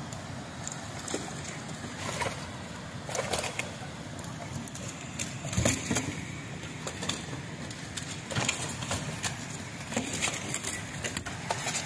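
Live carp flopping in a heap in a wet cargo bed: irregular wet slaps and knocks of fish bodies and tails against each other and the bed, the loudest about halfway through, over a steady low rumble.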